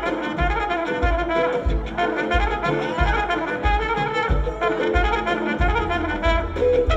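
Live band music with a trumpet playing the lead melody over a bass line that pulses at an even pace.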